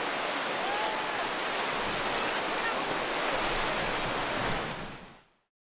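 Sea waves washing in on a sandy beach, a steady rush of surf. It fades out to silence about five seconds in.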